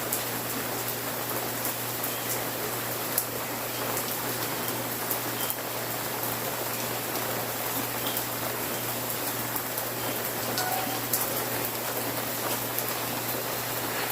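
Steady rain falling, an even hiss with scattered sharp drop ticks, over a faint low steady hum.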